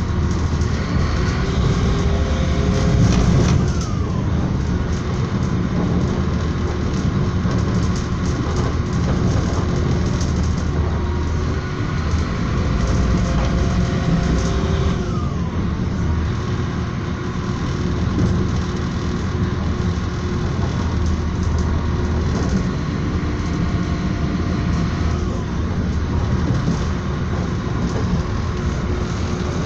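Passenger train running along the rails, heard from inside the carriage: a steady low rumble of the wheels and running gear. Three times, a faint whine falls in pitch.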